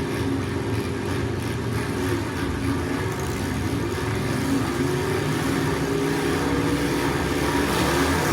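Racing car engines running together at a steady, fairly constant level, their pitch wavering slightly without any clear pass-by.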